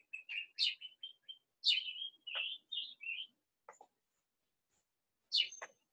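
Songbirds chirping: a quick run of short high chirps and a few downward-sweeping calls, then a pause of about a second and a half before one more sweeping call near the end.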